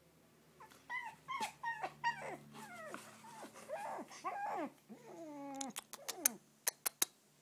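Shih Tzu puppy whimpering: a quick run of short, high, whiny cries, each falling in pitch. Near the end come a few sharp clicks.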